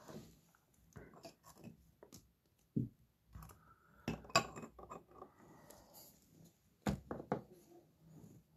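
Sports cards in rigid plastic holders being handled and set into clear plastic display stands: scattered light clicks and taps of plastic on plastic, the sharpest knocks about four seconds in and again about seven seconds in.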